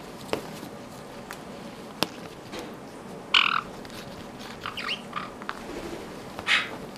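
A caique scrabbling and rubbing itself in a damp towel, giving short scratchy bursts and a few sharp clicks. The loudest bursts come about halfway through and near the end.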